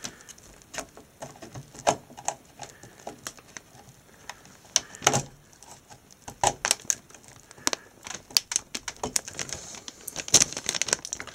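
Irregular plastic clicks and knocks of a 24-pin ATX power connector being handled and pressed home in a motherboard's socket, with a few louder clicks about two, five and ten seconds in.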